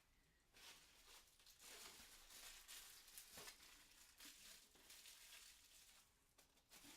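Faint crinkling and rustling of packing material being handled as statue parts are unwrapped, with a few light knocks.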